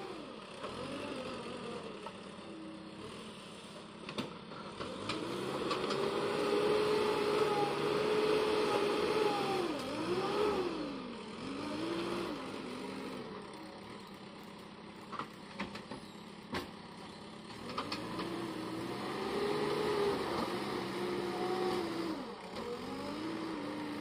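JCB Eco Xpert backhoe loader's diesel engine running under hydraulic load as the backhoe arm digs, its pitch rising and falling, working harder twice. A few short knocks come through in the middle.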